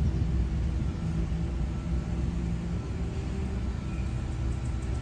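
Steady low rumble of a running vehicle engine, with a faint steady hum and no sudden events.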